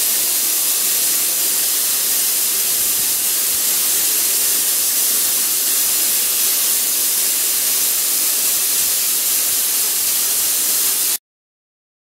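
Automatic car wash machine spraying water over a car: a steady hiss of water jets that cuts off suddenly about eleven seconds in.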